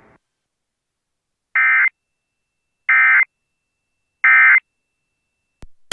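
Emergency Alert System end-of-message tones: three short bursts of digital data screech, about a second and a half apart, signalling that the tornado warning broadcast is over.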